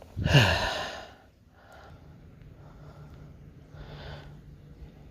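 A man's loud sigh, falling in pitch, lasting under a second, followed by quiet.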